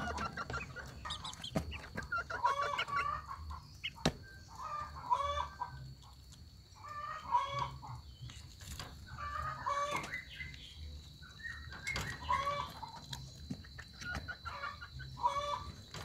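Short bouts of clucking animal calls, one bout every two to three seconds, with a few sharp clicks between them.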